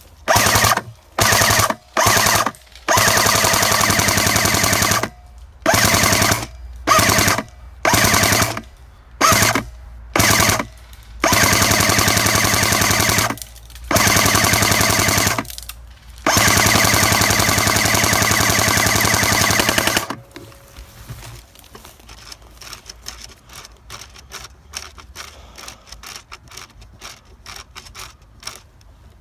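Airsoft gun firing on full-auto in about a dozen bursts: short ones at first, then longer ones of two to four seconds. The firing stops about twenty seconds in, leaving only faint scattered clicks.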